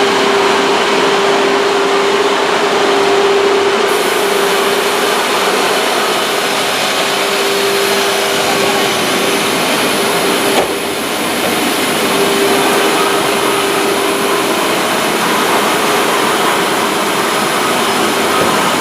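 Wood-cutting machine running steadily: a loud rushing noise with a steady whine through it. A brief click about ten and a half seconds in, after which the level dips for a moment.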